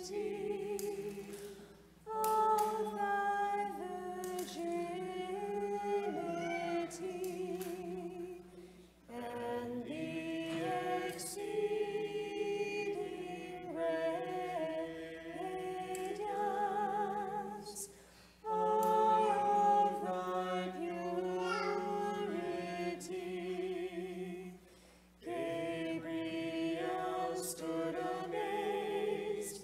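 A small group of voices singing an Orthodox church hymn a cappella, in four long phrases with brief pauses for breath between them.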